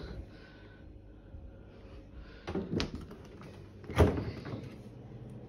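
Fridge-freezer door being handled: a couple of soft knocks about two and a half seconds in, then a louder thump at about four seconds as the door shuts.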